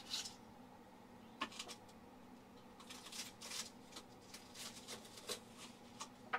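Faint, scattered crackling and rustling of a crisp deep-fried egg-roll-wrapper roll-up being picked up and handled on a foam plate, over a faint steady hum.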